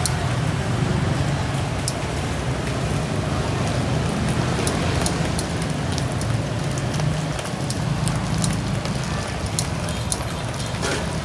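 Steady street noise with a low traffic rumble, over which come many small sharp clicks of kitchen scissors snipping fried chicken skin.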